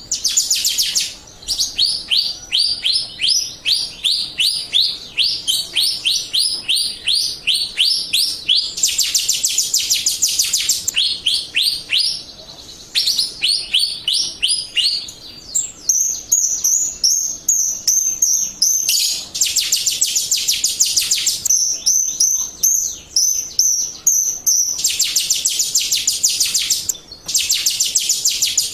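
Jalak Rio starling song: long runs of high, sharp chirps, each sweeping down in pitch, repeated several times a second, with a short break about halfway through and some higher, clipped notes in between. It is a lure recording meant to make other Jalak Rio birds answer and sing.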